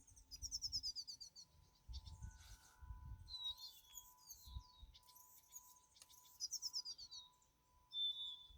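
Small songbirds calling, faint: two quick runs of high chirps, one near the start and one about six and a half seconds in, with thin whistled notes between them. Low muffled bumps come and go underneath.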